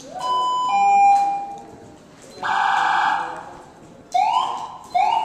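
Police siren sounded in short bursts: a rising wail that settles into a steady tone, a second held wail about two and a half seconds in, then two quick rising whoops near the end.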